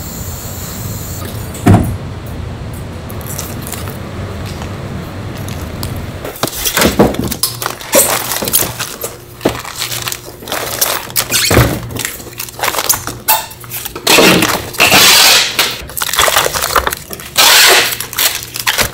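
Chamber vacuum sealer running with a steady low hum and one sharp click about two seconds in. After about six seconds the hum stops, and plastic-wrapped packets and ice packs are handled and packed into a styrofoam box with loud, irregular crinkling and rustling.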